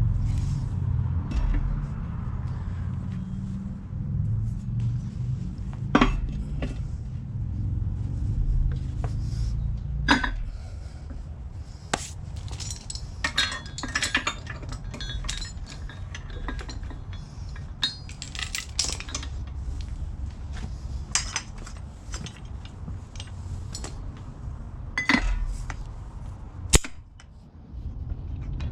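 Metal parts and tools being handled, clinking and clanking, with a few sharp knocks, over a low steady rumble.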